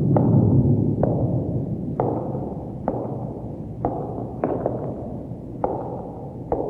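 Sharp knocks or taps about once a second, a few with a short ring after them, over a steady low rumble, the whole slowly fading.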